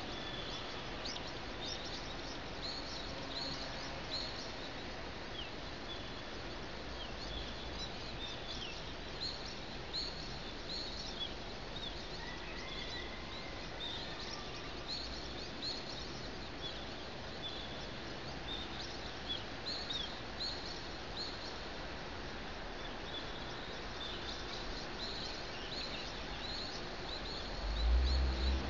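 Small birds chirping at daybreak: many short, quick, downward-sliding chirps, scattered irregularly over a steady hum of city background noise. A low rumble swells briefly near the end.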